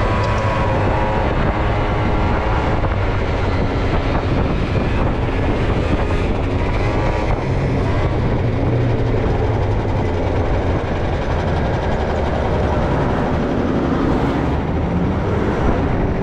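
A 50cc scooter's engine running steadily under a rider cruising at road speed, mixed with wind rushing over the microphone.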